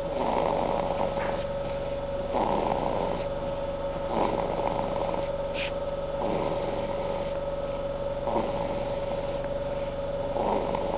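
Snoring during sleep: a rasping breath about every two seconds, over a steady background hum.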